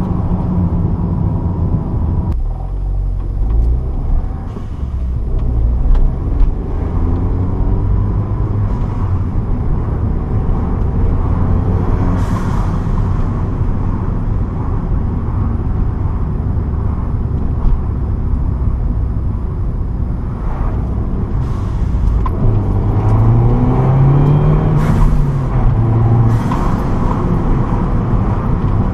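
Mini Cooper S R56's turbocharged 1.6-litre four-cylinder engine, breathing through a K&N Typhoon cold air intake, heard from inside the cabin while driving. The engine note rises and falls with the throttle and climbs noticeably about three quarters of the way through, with a few brief hissing rushes along the way.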